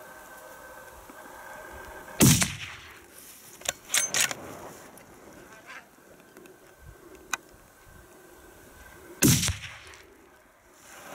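Two rifle shots about seven seconds apart, each a loud sharp crack with a short falling echo, fired at a black bear. A few small sharp clicks come between them.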